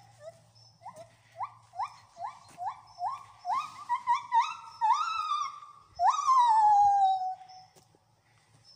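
Gibbons singing: a run of short rising whoops that come faster and grow longer, then one long loud whoop about six seconds in that slides down in pitch.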